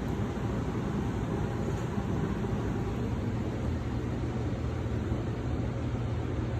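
2008 forced-air gas furnace running: a steady rush of air with a low hum.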